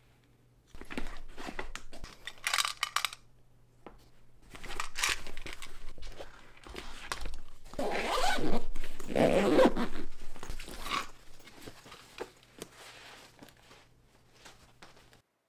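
Kitchen handling noises: irregular rustling and scraping with a few sharp clicks, loudest about eight to ten seconds in, stopping abruptly near the end.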